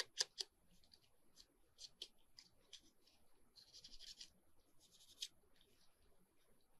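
Faint handling of paper and small craft pieces: a few light clicks near the start and a short scratchy rustle a little past the middle.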